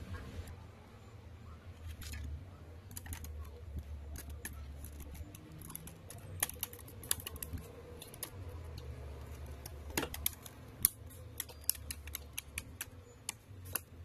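Irregular sharp clicks and light taps, like small plastic parts being handled or keys pressed, over a low steady hum; the sharpest clicks come about ten and eleven seconds in.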